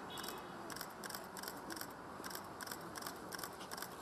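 Footsteps of a group walking on asphalt: crisp, irregular scuffs and clicks, a few per second, over a faint steady hiss.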